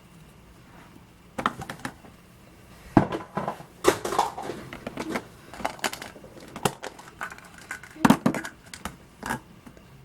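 Foil wrapper on a chocolate surprise egg being crinkled and torn open by hand, in irregular crackly bursts with sharp clicks, starting about a second and a half in.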